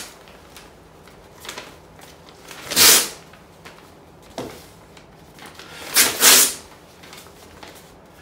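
Paper tearing imitated with the mouth: short hissing rips that sound like a sheet being torn. There is a loud one about three seconds in, a quick double one about six seconds in, and fainter ones between.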